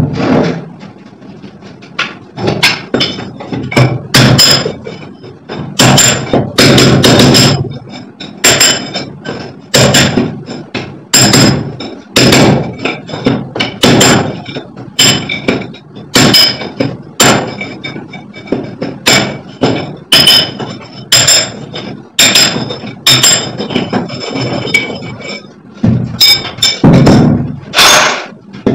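Hammer blows struck one after another, about one a second and sometimes in quick pairs, each with a short metallic ring, while a hole for an air-conditioner pipe is worked through a brick wall.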